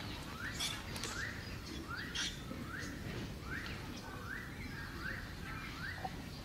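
A baby macaque making short squeals over and over, each rising in pitch and then levelling off, about one and a half a second, with a few faint clicks among them.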